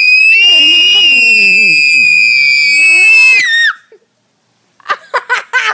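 Several children screaming together as loud and high as they can: one piercing, steady high scream on top, with lower wavering voices beneath, held about three and a half seconds before cutting off. About a second later come short bursts of voices.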